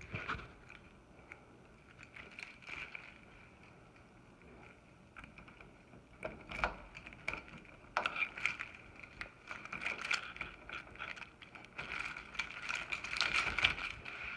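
Keys jangling and a key being worked in an apartment door lock: scattered metallic clicks and rattles, sparse at first and coming thick in the second half.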